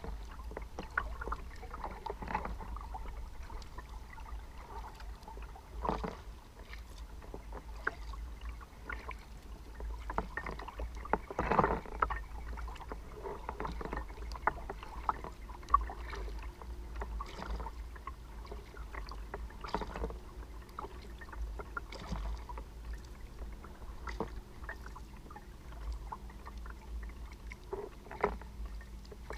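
Kayak paddling: the paddle blades dip and splash at uneven intervals, with drips and water lapping at the hull, over a low steady rumble. A few louder splashes or knocks stand out near the middle.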